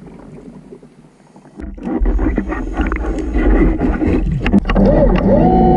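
Diver propulsion vehicle (underwater scooter) running, heard underwater from a camera mounted on the scooter: a low steady rumble of motor and water rushing past that starts about two seconds in, with scattered clicks. Near the end, a pitched tone warbles up and down over the rumble.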